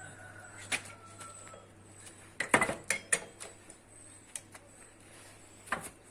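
Metal parts of a corn seeder clinking and knocking under repair work: a few sharp knocks, with the loudest cluster of clanks about halfway through.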